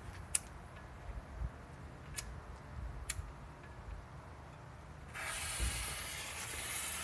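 Three sharp clicks, then about five seconds in the fuse of a 2-inch salute firework catches and hisses steadily as it burns.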